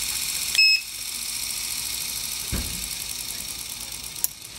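Treadmill DC motor running from its control board with a steady high whine. A short beep from the control console comes about half a second in, after which the whine slowly fades as the motor is stopped and winds down. A dull thump comes midway and a small click near the end.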